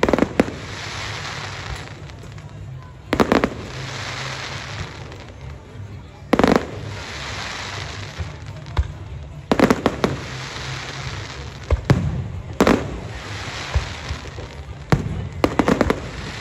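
Aerial firework shells bursting with sharp bangs every few seconds, some in quick pairs, each followed by a second or so of crackling hiss from the burning stars.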